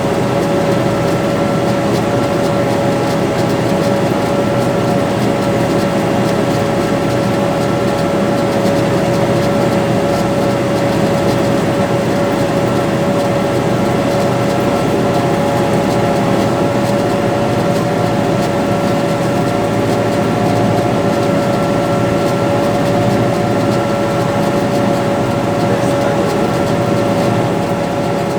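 Farm tractor's diesel engine running steadily under load while pulling a soybean planter, with a steady high whine over a dense low rumble.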